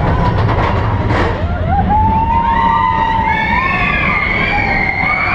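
Several roller-coaster riders screaming in long, sliding wails that start about a second and a half in, over the steady rumble of the steel coaster train running on its track.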